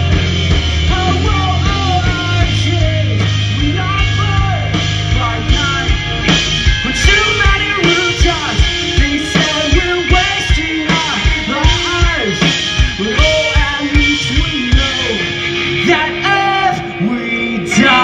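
Live pop-punk band playing loud: electric guitars, bass and drums with a male singer. A held chord rings for the first few seconds, then a steady drum beat comes in about six seconds in under the vocals.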